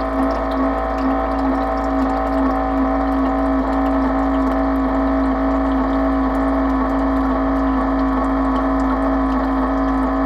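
Small battery-powered electric water pump on a 5-gallon water jug running loudly with a steady hum, pumping water out through its faucet into a glass jar.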